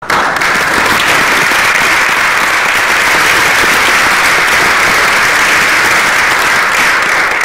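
Applause: many hands clapping together in a loud, steady patter.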